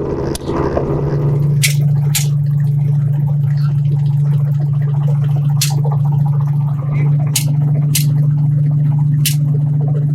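Steady deep drone of a helicopter in flight, with about six sharp rifle shots fired from it at irregular intervals.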